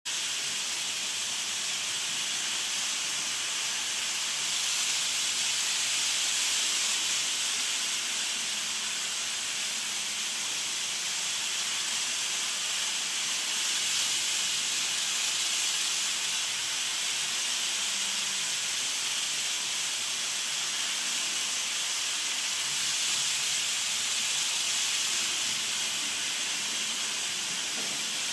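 Kato model train running around its Unitrack loop: a steady high-pitched rolling hiss that swells and eases every several seconds as the train circles.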